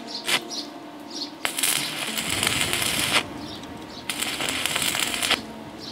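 Stick-welding arc crackling in two bursts of about one and a half seconds each, after a brief crack as the electrode strikes, while a small steel plate is tack-welded to a nut.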